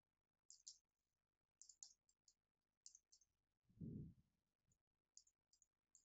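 Faint computer keyboard typing: several quick clusters of light, crisp keystrokes, with a brief low muffled sound about four seconds in.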